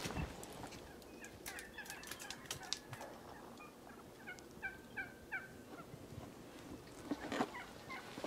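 Merriam's wild turkey gobbling twice in quick rattling runs of short falling notes, with a few sharp knocks near the start and end.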